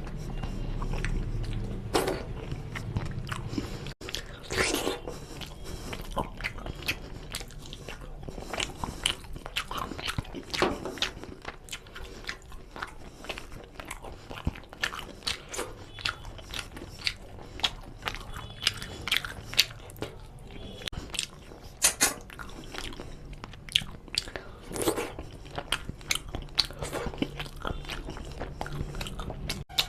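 Close-miked chewing and wet mouth smacks of a person eating rice and chicken curry, with many sharp clicks scattered throughout. Fingers also gather rice and gravy off a steel plate.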